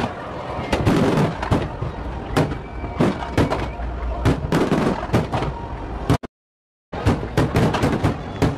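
Fireworks display: aerial shells bursting and crackling in quick, irregular succession, several bangs a second over a low rumble. The sound cuts out completely for under a second a little after six seconds in, then the bangs resume.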